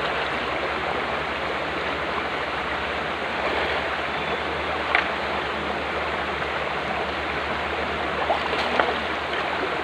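Shallow stream running steadily over rocks, a continuous rushing of water, with a few brief splashes or knocks, the sharpest about five seconds in.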